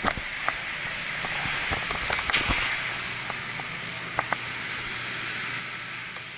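Steady hiss of water running into the cooling tower, with a few light clicks; a low hum joins about two and a half seconds in.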